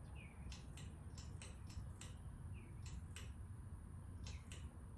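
Hunter Original ceiling fan starting up on low speed in reverse: a faint, steady low hum with irregular light ticks, about a dozen in all.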